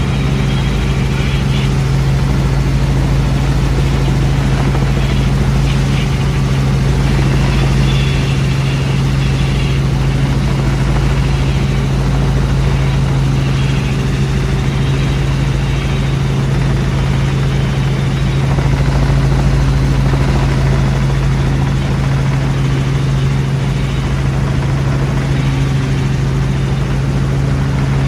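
Helicopter engine and rotor running steadily in flight, heard from inside the cabin: a loud, unchanging low drone over a constant rush of noise.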